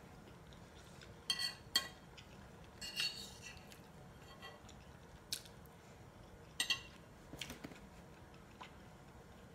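A metal spoon clinking against a ceramic bowl while scooping rice: about six light, sharp clinks spread out over the few seconds.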